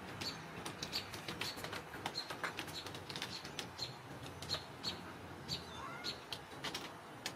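Birds chirping: short, sharp chirps repeating irregularly, a few each second.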